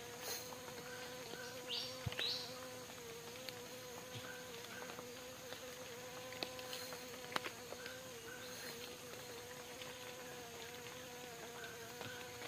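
A flying insect buzzing steadily near the microphone, a thin hum that wavers slightly in pitch. A few faint sharp clicks and two short high chirps, about two seconds in.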